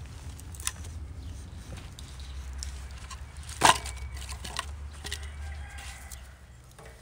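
Split wooden kindling sticks knocking and clattering as they are gathered and handled, with one sharp wooden knock about three and a half seconds in and a few lighter clicks around it, over a low steady rumble.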